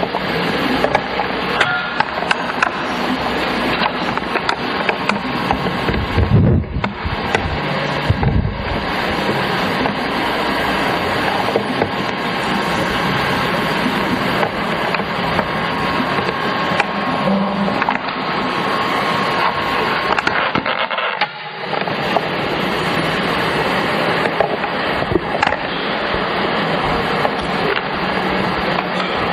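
Steady rushing noise from the soundtrack of a camcorder's outdoor night footage, played over the hall's speakers. There are low thumps about six and eight seconds in, and a brief drop-out a little after twenty seconds.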